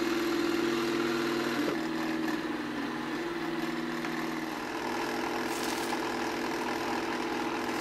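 Fairy floss (cotton candy) machine's electric motor spinning its heated head, a steady hum. A brief hiss comes a little over halfway through as sugar is poured into the spinning head.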